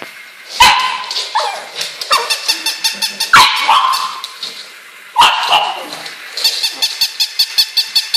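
High-pitched dog barks and yips: sharp calls about half a second, three and a half and five seconds in, each falling in pitch, with fast runs of short rattling yaps between them.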